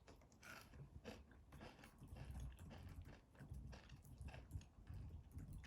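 A person faintly chewing a bite of Dubai chewy cookie, with irregular crunching crackles from its kadaif-and-pistachio filling.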